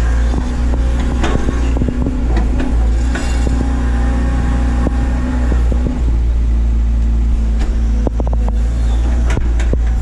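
Doosan DX180 excavator's diesel engine running steadily under load, with scattered knocks and clanks throughout as the machine works.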